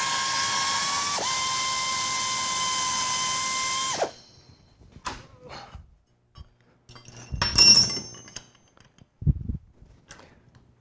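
Air-powered flex-arm tapping machine running a tap into an aluminum part: a steady motor whine that dips in pitch briefly about a second in and cuts off about four seconds in. After it come a few small knocks and a short metallic clatter.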